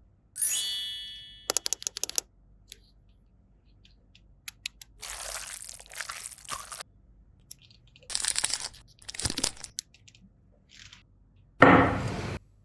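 A short ringing chime just after the start, then scattered clicks and brief crinkly rustles of plastic toy parts and packaging being handled, with a louder rustle near the end.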